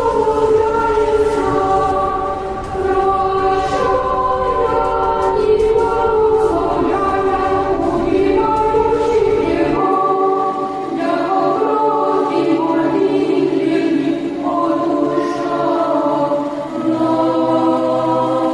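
Dramatic choral music: a choir holding long, layered notes. A low rumble runs underneath and cuts off suddenly about ten seconds in.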